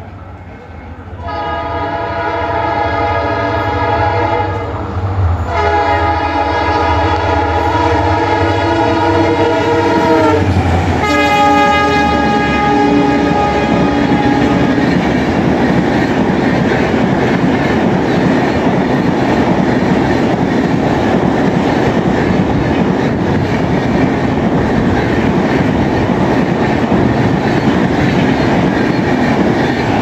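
EMD WDG-4 diesel locomotive sounding its multi-tone horn as it passes at speed: two long blasts, the second dropping in pitch as the engine goes by, then a shorter, lower blast. The coaches of the express follow with a steady loud rush and rattling wheel clatter until the end of the train has passed.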